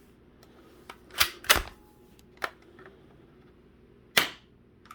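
Sharp plastic clacks from a Cruxnut toy Glock foam-dart blaster as it is worked and fired: a quick pair about a second in, a faint click midway, and another sharp clack about four seconds in. It is a very low-powered spring shot of about 45 feet per second.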